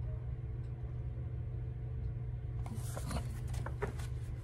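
Paper rustling and a few light clicks from about two and a half seconds in as a coloring book's page is turned, over a steady low hum.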